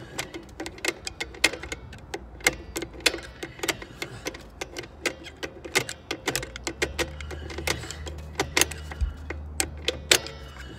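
Star-wheel adjuster of a Dexter 12 x 2 inch electric trailer drum brake being turned with a flat screwdriver through the backing-plate slot. It clicks notch by notch, irregularly, about three clicks a second. The shoes are being spread until they just begin to drag on the drum.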